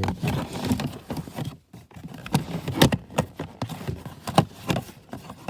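Plastic fuse panel cover and trim being handled and worked into its hinge slots: a string of irregular plastic clicks, knocks and rattles.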